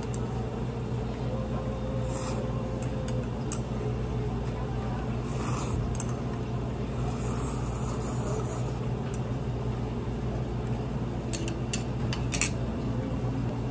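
Noodles slurped from a bowl in a few short slurps, with chewing in between, over a steady low hum. A few light clicks come near the end, from metal chopsticks against the ceramic bowl.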